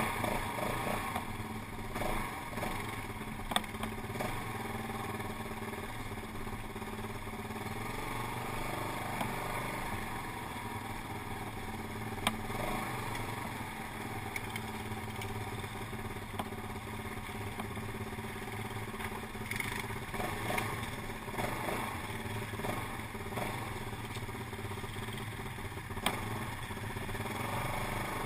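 Quad bike (ATV) engine running steadily at an even speed while riding a rough dirt trail, with a few sharp knocks from the machine jolting over the ground.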